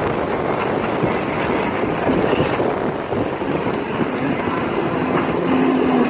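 Stand-up Kawasaki jet ski running on open water, its engine mixed with a steady rush of spray and wind on the microphone; a steady engine tone stands out near the end.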